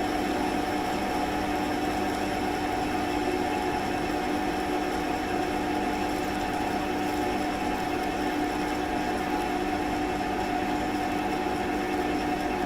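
Smart & Brown lathe running steadily while a resharpened 4 mm carbide parting tool cuts off an 8 mm stainless steel rod, a steady machine whine with the noise of the cut, unchanging throughout.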